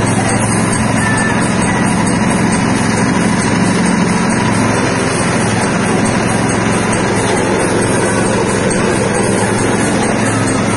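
Soybean splitting and dehulling machine running, a steady, loud mechanical drone as it cracks the beans and strips off their skins.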